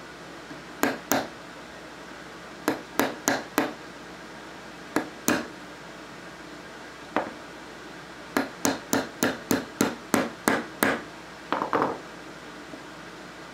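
Small hammer tapping a pin punch to drive the trigger pin out of an Ithaca Model 49 .22 lever-action receiver: sharp metallic taps in short groups of two to four, then a faster run of about ten taps.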